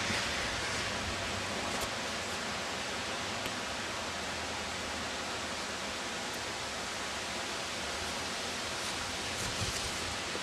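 Steady, even hiss of wind in a snowstorm.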